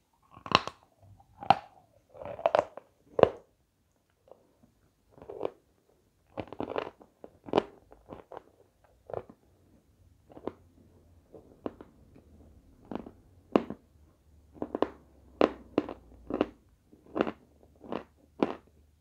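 Close-miked crunching and chewing of lumps of edible chalk: sharp, irregular crunches about one or two a second, with a short pause about four seconds in.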